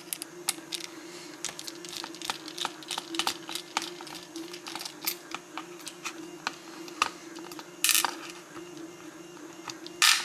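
Small metal lock parts and hand tools being handled on a workbench while a lock is taken apart: many light, irregular clicks and taps, with a short scrape about eight seconds in, over a steady low hum.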